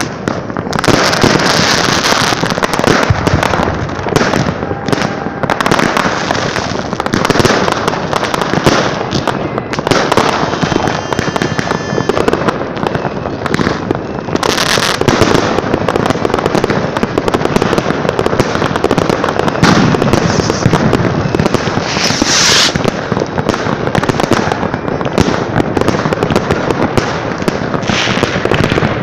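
Fireworks going off in a dense, continuous barrage of bangs and crackling, with a brief high whistle about eleven seconds in.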